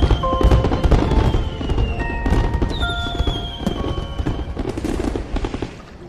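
Fireworks bursting overhead: a rapid crackle of explosions with low booms, thinning out near the end, under soft background music.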